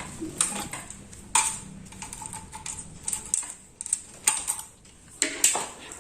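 Irregular metallic clicks and clinks, some ringing briefly, over a faint low hum that dies away about halfway through.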